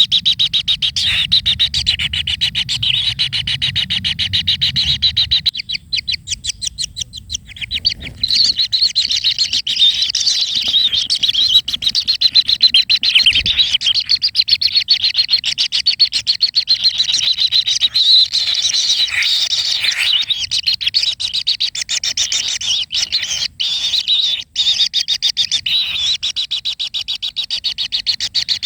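Birds chirping in dense, rapid, high-pitched series that run on without a break, with a very fast trill of chirps about six seconds in.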